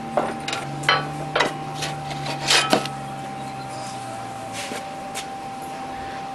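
Flat steel strips being lifted and slid across the steel bed of a homemade sheet metal brake, clanking and scraping several times, loudest in the first three seconds. A steady hum runs underneath.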